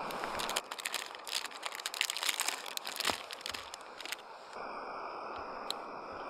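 Plastic packaging crinkling and crackling as it is handled, for about four seconds. A steady rushing hiss comes before and after it.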